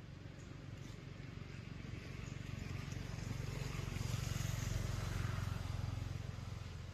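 A motor vehicle passing by, its low engine rumble swelling to a peak about four to five seconds in and then fading.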